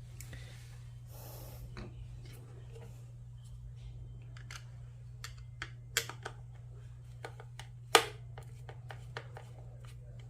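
Scattered light clicks and knocks of a washing-machine drain pump being handled and checked. A sharper click comes about six seconds in and the loudest, sharp click about eight seconds in, over a steady low hum.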